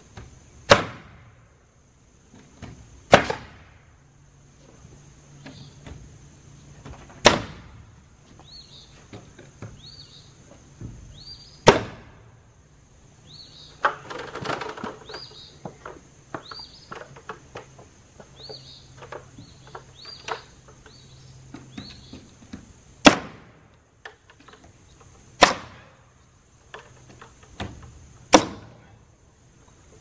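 Pneumatic nail gun firing nails into pine siding boards: seven sharp shots a few seconds apart, with a longer rustling clatter about halfway through. Birds chirp and insects drone steadily behind.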